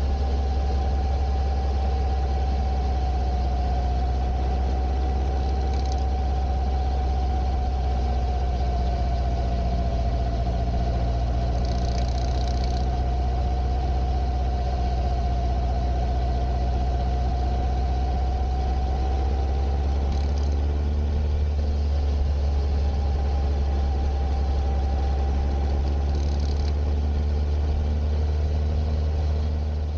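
Kawasaki ZR-7S air-cooled inline-four engine idling steadily, with a thin whine riding above the engine note and drifting slightly in pitch, and a few brief faint hisses. The owner hears an abnormal noise in it and does not know what it is.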